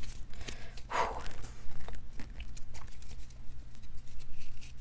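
Trading cards being handled, sleeved and stacked on a table: light rustles and small taps, with one short sound that falls in pitch about a second in.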